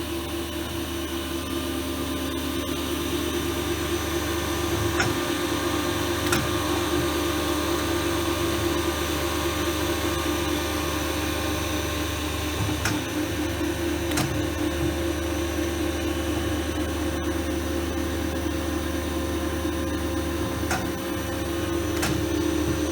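WIDMA AS 810 saw blade grinding machine running with a steady hum, with a few sharp clicks along the way.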